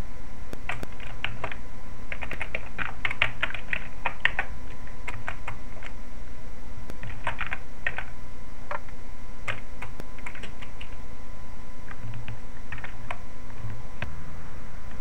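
Computer keyboard being typed on: quick runs of key clicks with short pauses between them, over a steady low hum.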